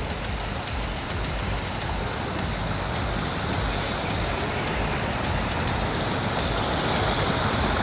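Steady rushing of fast-flowing bayou water, an even hiss with no breaks.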